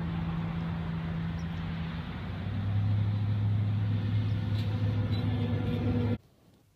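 An engine running nearby: a steady low hum over a noisy bed, dropping in pitch and growing louder about two seconds in, then cutting off suddenly near the end.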